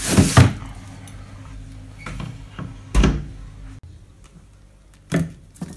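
A plastic freezer drawer pushed shut, with two sharp knocks close together at the start. A few softer knocks follow, with a heavier thump about three seconds in and one more short knock near the end.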